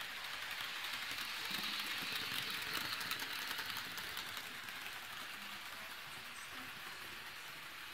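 HO-scale electric model locomotive running along the track: a steady rolling hiss and motor whir that swells a couple of seconds in and then eases off.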